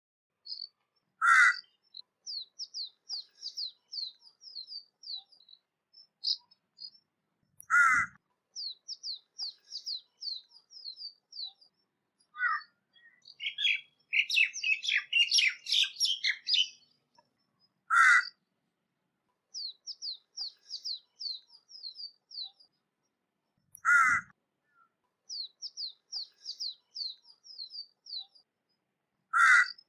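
Crow cawing: single loud caws about every five to six seconds, five in all, over rapid high chirping from small birds, with a denser burst of chirps about halfway through.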